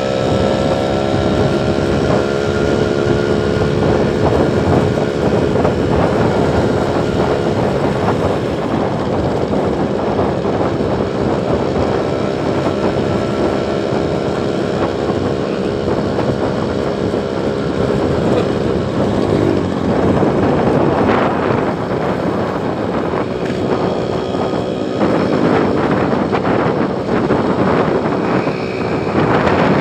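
Motor vehicle engine running steadily under way, its pitch drifting slightly up and down, over road and wind rumble.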